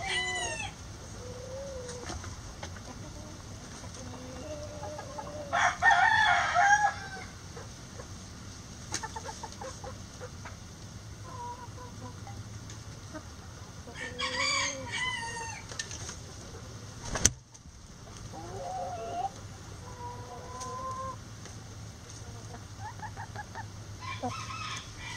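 Backyard chickens clucking and calling on and off, with louder drawn-out calls about six and fifteen seconds in and again near the end. A single sharp click about seventeen seconds in.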